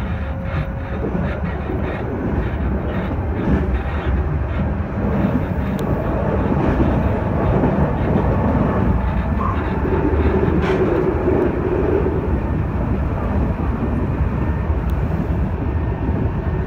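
Meitetsu 2300 series electric train running along the line, heard from inside the front car: a steady low rumble of wheels on rail and running gear, with a few light clicks in the first few seconds.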